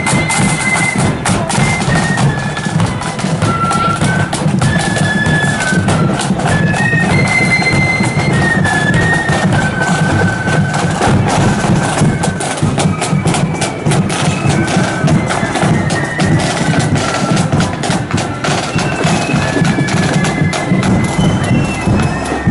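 Marching band going past, playing a high piping melody over steady snare and bass drums.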